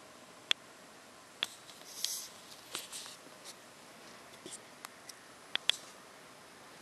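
Handling noise from a handheld camera over a faint steady hiss: scattered small clicks and a brief rustle about two seconds in. The sharpest clicks come about half a second in and as a quick pair near the end.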